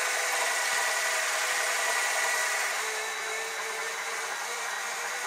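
Belt-driven Chinese mini metal lathe running steadily with a bronze part turning in the chuck: an even motor whine over a high hiss.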